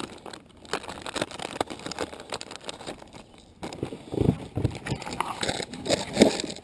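Crinkling and crackling of a plastic soft-bait package being handled, followed by a few dull knocks as gear is rummaged in the kayak's side storage.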